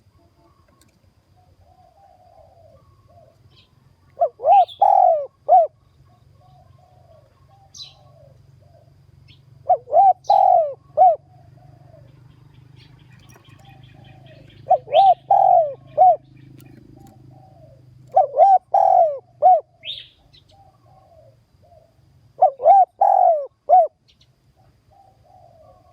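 Spotted dove cooing: five phrases of several rising-and-falling coos, each a few seconds apart, with short high chirps from another bird between them.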